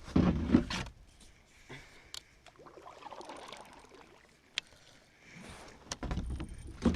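Baitcasting reel being cranked to retrieve a cast crankbait, with a few sharp ticks. Low rumbling bumps on the microphone in the first second and again near the end are the loudest sounds.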